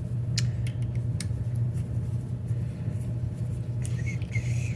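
A few light clicks and taps of small chainsaw carburetor parts being handled on a workbench, over a steady low background hum.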